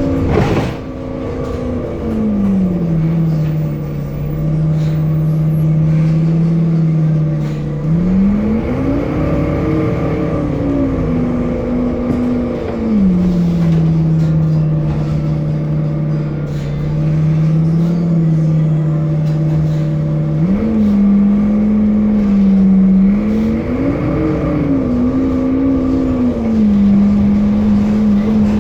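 Temsa Avenue LF city bus with a DAF diesel engine and ZF Ecolife six-speed automatic, heard on board. A strong humming tone from the engine and driveline falls and settles low, then rises and falls several times as the bus speeds up and slows. There is a single knock about half a second in.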